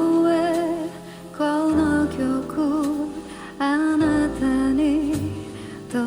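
A female voice singing phrases with vibrato over instrumental backing with bass notes. The song is played through a TB W4-927SEF 10 cm full-range speaker driven by a Yamaha CA-800II Class A amplifier and picked up by a microphone in the room.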